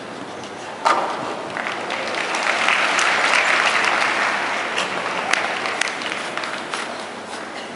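Arena crowd applauding a show-jumping round. The applause swells to a peak about three seconds in, then fades. A single sharp knock comes about a second in.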